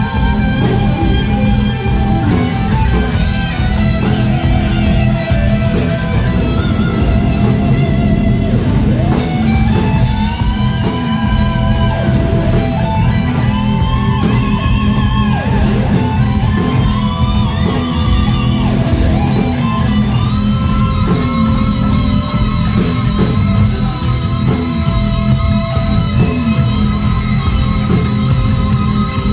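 Live rock band playing loud: an electric guitar lead with bent, gliding notes over bass and a steady drum beat.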